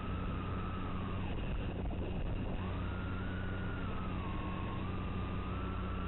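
Electric motors of a small FPV drone whining, the pitch rising and falling with the throttle. The whine cuts out about a second in and comes back at about two and a half seconds, over a steady hiss and low hum.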